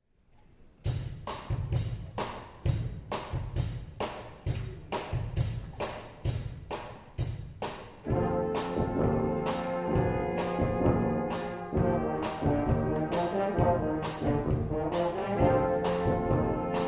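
Brass band music played live by street performers. A drum beat of about three hits a second opens, and horns come in with held notes about eight seconds in.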